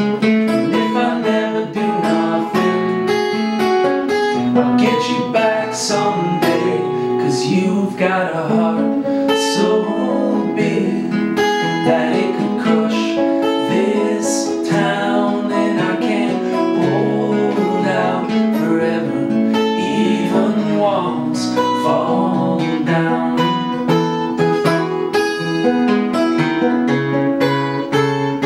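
A man singing a song while strumming a capoed acoustic guitar.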